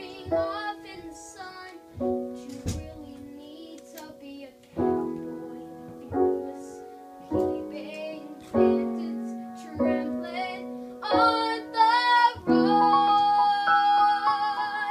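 A young boy singing a show tune over instrumental chord accompaniment, in short phrases, ending on a long held note with vibrato near the end.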